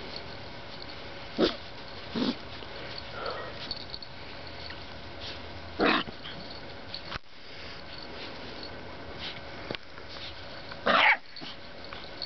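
Young puppies giving a few short, scattered yips, the longest and loudest near the end.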